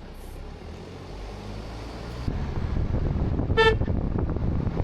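Low outdoor rumble that gets louder a little past two seconds in, with one short horn toot about three and a half seconds in.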